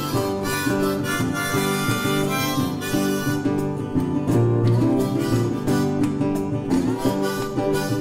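Instrumental background music: held melody notes over plucked accompaniment, with no carving sounds standing out.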